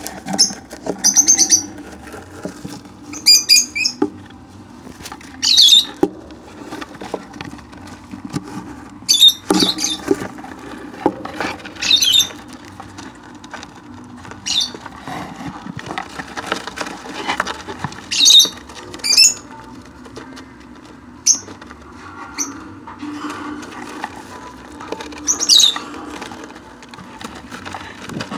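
Lovebirds giving short, shrill, high-pitched calls, about a dozen scattered irregularly a second or two apart.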